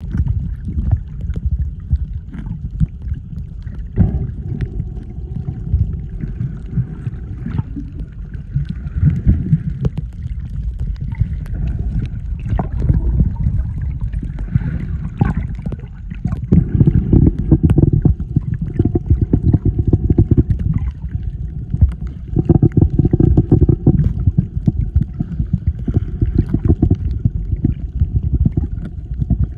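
Muffled underwater sound over a coral reef: a low, churning water rumble with scattered clicks and a faint steady hum, growing louder about halfway through and again later on.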